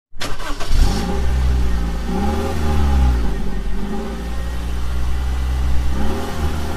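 Honda BR-V's 1.5-litre four-cylinder petrol engine started with the key: the starter cranks briefly and the engine catches within about a second. It then runs, its pitch rising and falling a few times as it is revved lightly.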